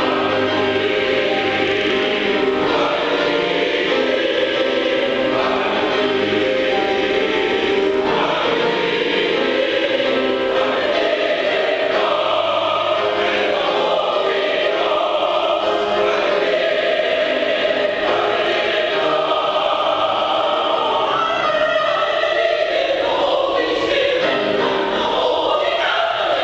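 Mixed gospel choir singing with piano accompaniment, holding full chords that change every second or two at a steady loudness.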